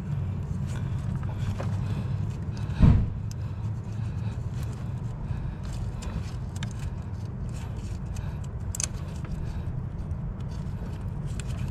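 Light clicks and knocks of hands working parts in the engine bay, with one heavier thump about three seconds in, over a steady low rumble.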